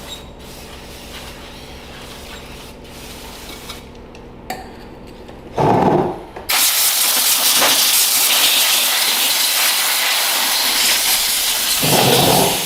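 Pressurised spray hissing in one long blast of about six seconds, after a short burst, as dirty carburetor and throttle parts of a lawnmower engine are cleaned.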